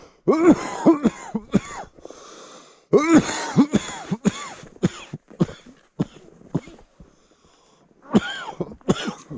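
A man coughing hard in three hacking fits with wheezy breaths between, the kind of cough that follows a deep hit of cannabis smoke from a pipe bowl.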